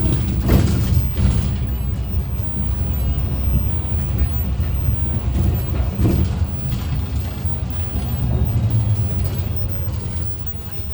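City bus running, heard from on board: a steady low engine and road rumble, with a few brief rattles, the clearest about half a second in.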